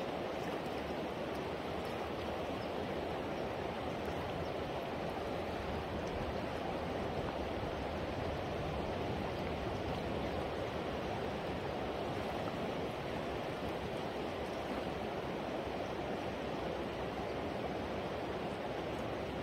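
Steady rush of flowing river water, an even wash of noise with no single sound standing out.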